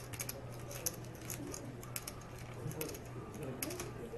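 Clay poker chips clicking and clacking in quick irregular runs as players handle and riffle their stacks at the table.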